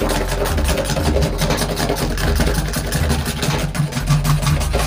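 Power tool motor running steadily with a rough rasping, cutting a slot through a blue plastic tank wall.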